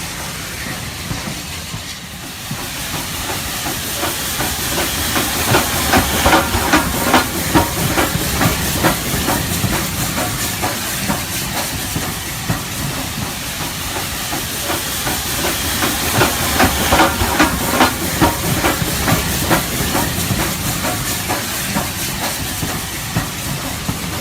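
Model steam locomotive running: a steady steam hiss, with stretches of fast, even chuffing beats about five seconds in and again about fifteen seconds in.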